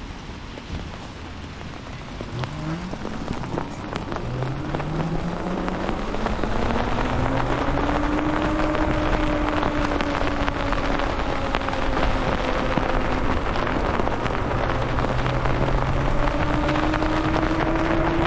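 Lyric Graffiti electric bike's motor whining as it accelerates from a stop, the whine starting about three seconds in, rising in pitch for several seconds and then holding roughly steady, over the hiss of tyres on wet pavement and wind that grow louder with speed.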